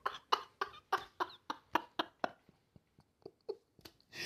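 A man laughing in a run of short bursts, about four a second, that thin out and fade over the last two seconds.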